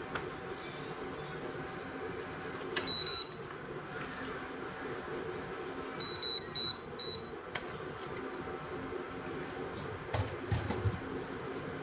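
Electric cooktop's control panel beeping: one beep, then three short beeps in quick succession a few seconds later, over a steady hum. A couple of low knocks near the end as a glass lid is set on the pan.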